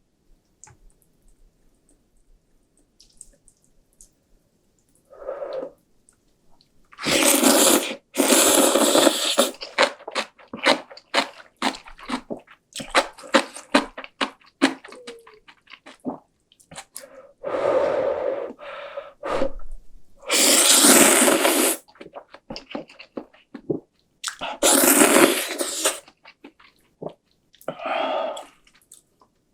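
Close-miked eating of cup ramen: several loud slurps of noodles, each about a second long, with wet chewing and smacking clicks between them.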